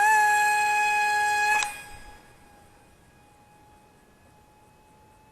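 Small brushless motor (1104, 7000 kV on 2S) and micro prop of an RC glider holding a loud, steady high-pitched whine at full throttle. About a second and a half in, it drops suddenly to a faint whine at the same pitch, as the glider flies off after launch.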